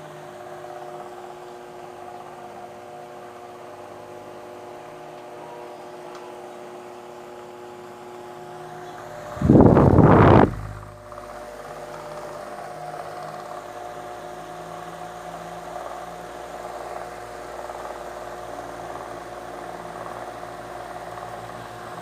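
Arge Twister 50 cm wall fan running, its motor giving a steady hum with several held tones. About halfway through, a loud rush of air lasts around a second, as the oscillating fan's blast sweeps past the microphone.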